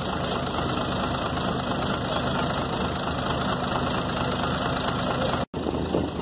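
Fishing boat's engine running steadily, a continuous low drone, broken once by a short gap near the end.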